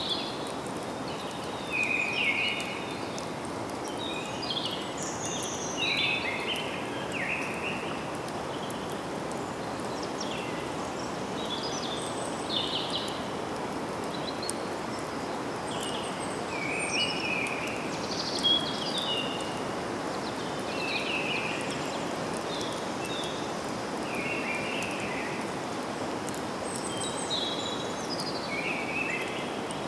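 Forest ambience: several birds singing short, varied phrases, one after another, over a steady background hiss.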